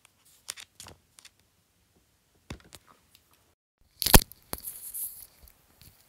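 Handling noise from wired earphones being fiddled with: a few soft clicks and rustles, then a sharp knock about four seconds in followed by about a second of scraping rustle as the cord and earpieces rub.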